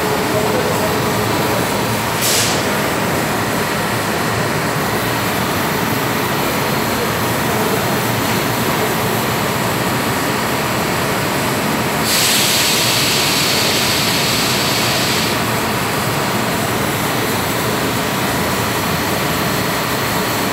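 Automatic biscuit plant machinery running: a loud, steady mechanical drone from the moulding machine and dough-sheet conveyor. There is a brief hiss about two seconds in, and a longer hiss from about twelve to fifteen seconds.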